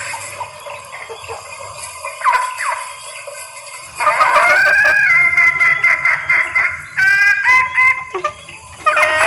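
Female junglefowl hen calling to a male while in breeding condition: a series of clucking calls, faint at first, turning loud about four seconds in and coming in bursts after that.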